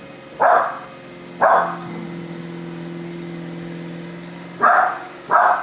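A dog barking four times: two barks about a second apart at the start, then two close together near the end. A steady low hum fills the pause between them.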